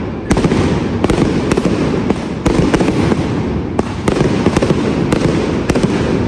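Correfoc pyrotechnics: a continuous loud rushing hiss of spraying firework fountains, swelling in waves, with many sharp firecracker cracks going off at irregular intervals.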